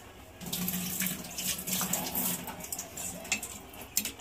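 Water running in a steady stream, starting about half a second in.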